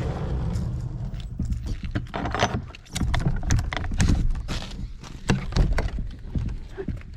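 Sliding shed doors rolled along their track and knocked together, with a run of irregular wooden clacks and knocks over a low rumble.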